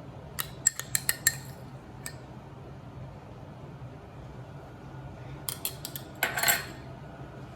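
A spoon clinking and scraping against a dish while sauce is served: a quick run of about five sharp clinks near the start, then a few more clinks and a longer scrape about two-thirds of the way through, over a faint steady low hum.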